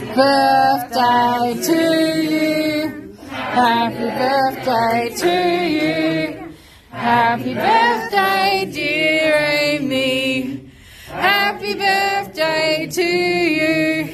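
A group of voices singing together unaccompanied, in about four sung lines with short breaks between them.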